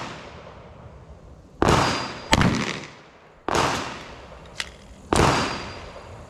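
Handgun shots fired at a deliberate pace: three shots spaced about two seconds apart, each followed by a long echoing tail. Two shorter, sharper cracks fall between them.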